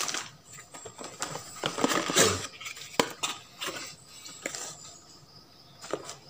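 Hands handling a cardboard box and its paper manuals and inner packing: paper and cardboard rustling with scattered light knocks and clicks, the loudest about two to three seconds in.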